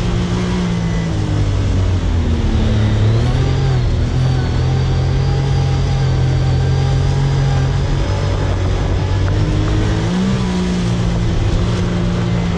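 Side-by-side UTV engine running under load while driving over sand dunes. Its pitch dips and climbs with the throttle a few seconds in and again near the end, over a steady rush of wind and tyre noise.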